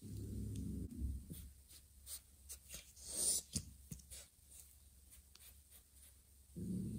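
A cat's low rumble lasting about a second at the start, and again near the end, with soft scattered clicks and one short breathy rush in between as the kittens nurse.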